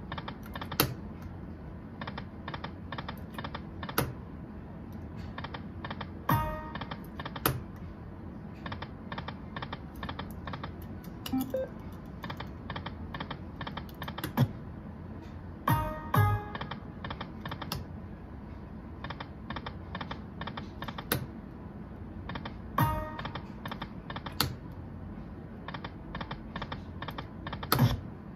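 Aristocrat Dragon Link Golden Century poker machine spinning its reels spin after spin: a fast run of clicking ticks as the reels turn and stop, with a short electronic chime at the start of some spins and a sharper click every few seconds.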